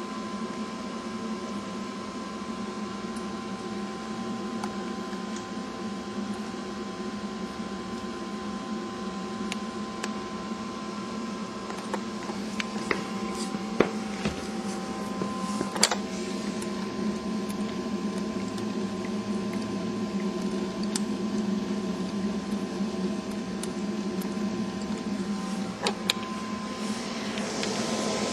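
Radial fan of a homemade tornado machine running steadily with a constant hum, broken by a few sharp clicks.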